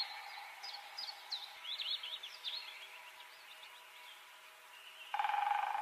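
Faint, quick chirps of small birds over a steady low hum. About five seconds in, a louder buzzing tone starts suddenly.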